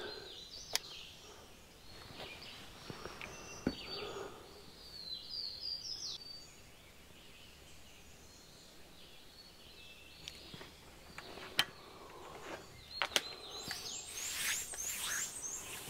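Quiet woodland ambience with a songbird singing faintly: a short cluster of high falling chirps about five seconds in and a run of six or seven quick repeated notes near the end. A few light clicks and knocks are scattered through it.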